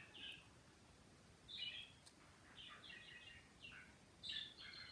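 Faint bird chirping: several short runs of quick, high chirps with brief pauses between them.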